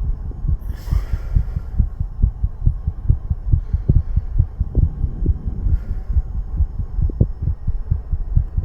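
A grown man's heart beating fast, a rapid, even run of low thumps picked up close against the chest.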